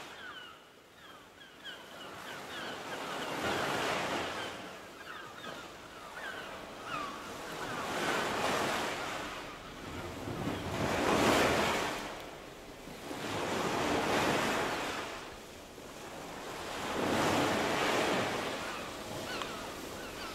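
Ocean surf: waves swell and wash in slow surges every few seconds, about five in all, the loudest a little past the middle. Faint short high chirps sound over the waves in the first several seconds.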